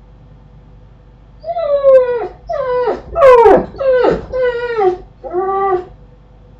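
An animal's high-pitched whining cries: about six separate calls, mostly sliding down in pitch, starting about a second and a half in and stopping about a second before the end.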